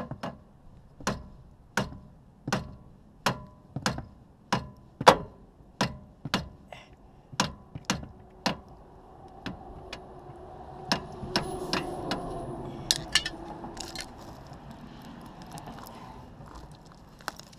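Rubber mallet striking a Teraflex quick-disconnect sway bar end link about a dozen times, roughly one blow every two-thirds of a second, to knock the tight link off its thicker mounting stud. After the blows stop come softer scraping and a few clicks.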